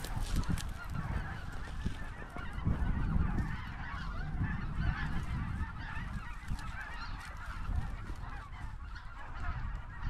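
A huge flock of geese flying overhead, many birds honking at once in a constant, overlapping chorus, with wind rumbling on the microphone.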